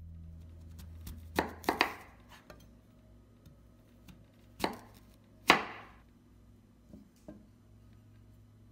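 Chef's knife slicing through a peeled purple sweet potato and knocking onto a bamboo cutting board. There are three quick chops a little over a second in, then two louder ones about three seconds later.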